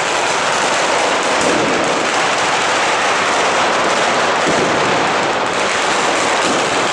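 Firecrackers and fireworks going off on the ceremonial cart in a dense, unbroken barrage of rapid bangs with no pauses.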